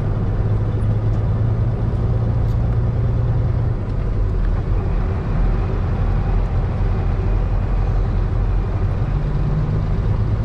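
Dump truck's diesel engine running steadily, its note easing off about four seconds in and picking up again near the end.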